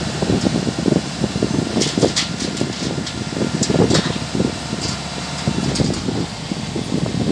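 Kubota crawler combine harvester running and creeping forward, its diesel engine giving a dense, rough running noise with a few sharp metallic clicks and clanks about two and four seconds in.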